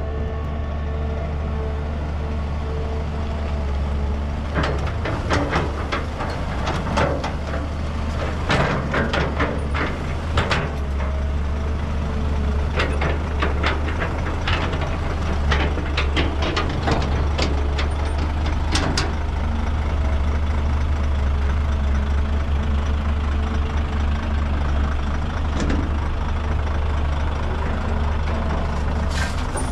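Heavy diesel machinery running steadily: a dump truck's engine and a Caterpillar 320GC excavator working as it loads the truck with soil. A spell of sharp knocks and clatter comes and goes through the middle.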